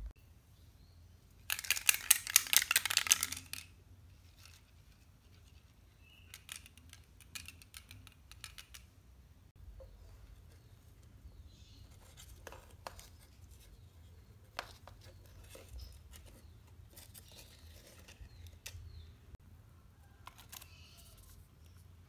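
Corrugated cardboard being worked by hand: a dense crackling, scraping burst for about two seconds near the start, then scattered light taps and scrapes.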